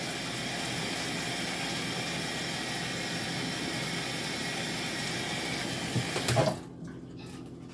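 Kitchen tap running steadily into a sink as hands are washed, then shut off after a light knock about six and a half seconds in.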